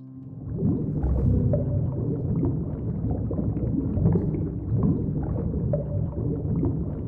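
Low, churning bubbling and gurgling of aquarium water with many small pops, starting about half a second in.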